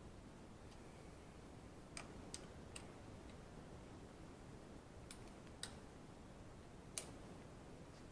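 Near silence broken by about six faint, sharp metal clicks at irregular intervals, the loudest near the end: a hand tool and fingers handling the motorcycle's handlebar clamp and fork-cap fittings.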